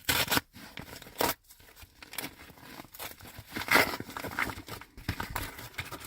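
A package being torn open by hand, its packaging crinkling and rustling in irregular bursts.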